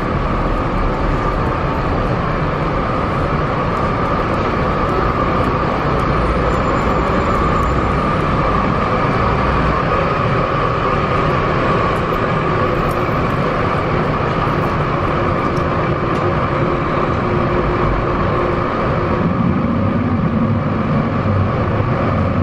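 Steady, loud road traffic din with a constant whine running through it; a deeper rumble swells near the end as a vehicle passes.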